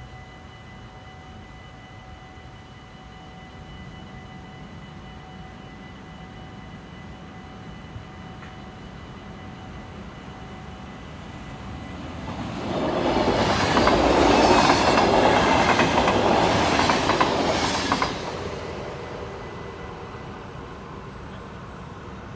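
A train passing over a railway level crossing. It rises from about twelve seconds in, is loud for some six seconds with its wheels clattering over the rails, then fades. Before the train arrives, the crossing's warning bell rings as a steady tone.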